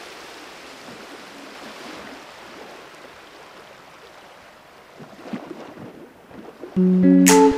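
Steady rushing road and wind noise of a vehicle driving on a gravel road, with a few crackles of gravel. Near the end, loud guitar music cuts in with a sustained chord and then a sharp strum.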